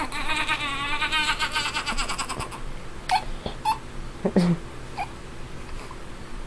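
A sleeping baby making a rapid, stuttering "machine gun" noise with her voice, a fast run of even pulses for about two and a half seconds, followed by a few short squeaks and grunts.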